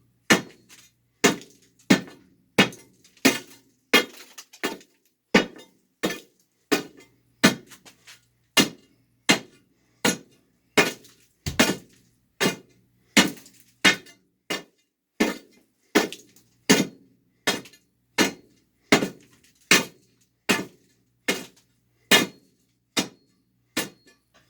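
A steel pry bar being driven down again and again into a concrete floor slab, chipping at it to break through for a drain hole. Sharp, ringing strikes come in a steady rhythm of about three every two seconds.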